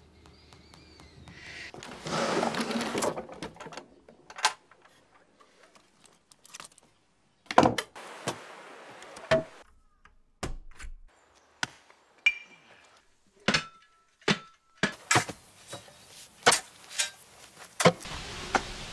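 A string of separate sharp knocks, thumps and slams, about fifteen in all, with short quiet gaps between them that shorten in the last few seconds. A brief rushing noise swells about two seconds in.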